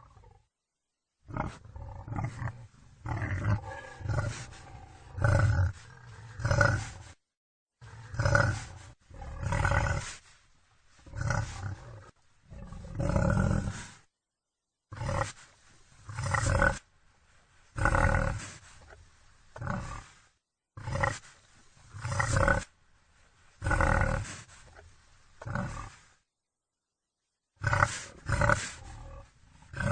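Wild boar grunting in short, loud calls about one to two seconds apart. The calls are broken by a few dead-silent gaps of about a second where separate recordings are joined.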